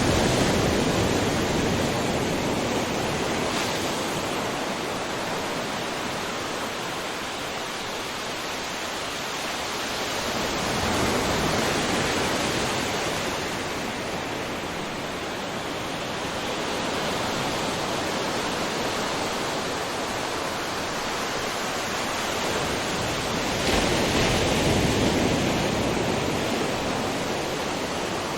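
Ocean waves breaking on a shore: a continuous rushing wash of surf that swells and eases every several seconds, with a sharper crash of a breaking wave near the end.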